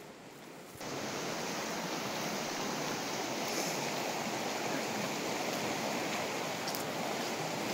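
Shallow river rushing over stones, a steady rushing that starts suddenly about a second in.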